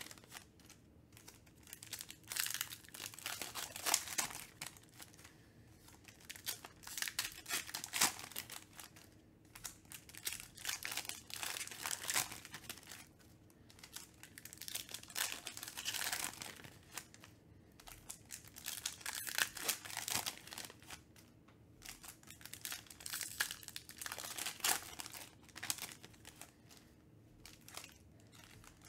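Foil wrappers of trading card packs crinkling and being torn open by hand, in irregular bursts every second or two, with cards handled in between.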